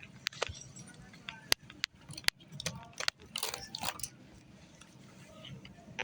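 A few sharp clicks and short bursts of crinkly rustling, like packaging being handled, over a steady low hum.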